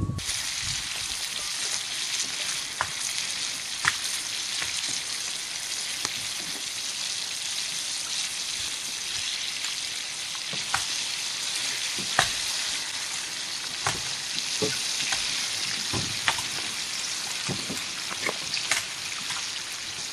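Food sizzling in a frying pan over a burner: a steady hiss with occasional sharp pops.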